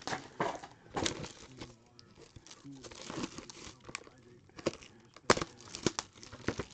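Cellophane wrap being torn off a trading-card box and crumpled in the hands: irregular crinkling and tearing, with a sharp crack a little past five seconds in.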